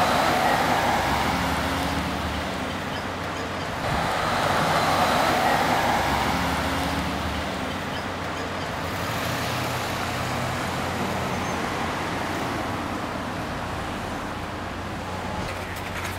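Street traffic: cars passing on the road, engine and tyre noise swelling as they go by, once at the start and again about four seconds in, then a steadier background hum of traffic.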